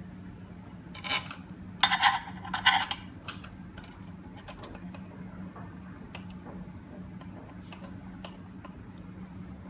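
Light clicks and taps of door-lock hardware and screws being handled, with a loud harsh scraping stretch about two seconds in, over a steady low hum.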